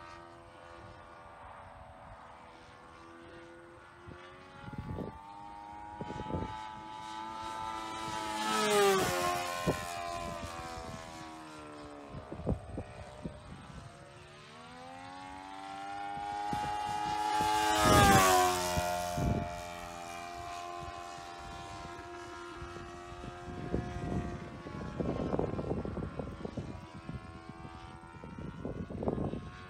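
Sportster 60 RC model airplane's engine and propeller droning in flight. The pitch and loudness rise and fall as it makes passes, with two louder passes about 9 and 18 seconds in, each dropping in pitch as the plane goes by. A few short thumps are scattered through it.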